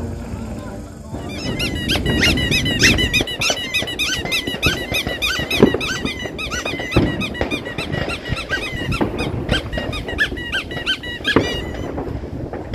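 New Year fireworks going off: about a second in, a dense run of short whistling chirps starts, mixed with crackling pops and a few louder bangs.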